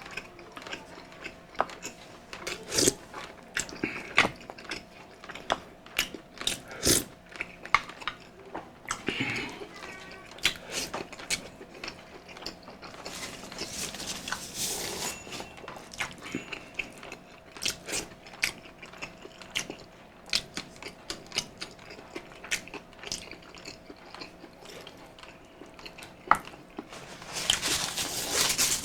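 Close-miked eating of balbacua beef stew: chewing and mouth smacks with scattered sharp clicks of cutlery, over a faint steady hum.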